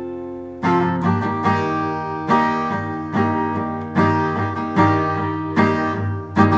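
Acoustic guitar strumming chords in an instrumental break between sung lines. A chord rings and fades, then fresh strums come about every three-quarters of a second from about half a second in.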